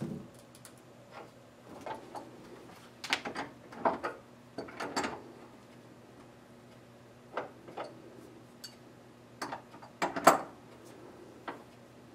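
Irregular rustles, clicks and light knocks of hands tying a thread onto the wooden crossbar of an EarthLoom, the first step of warping it. The sounds come in clusters, the loudest near the end.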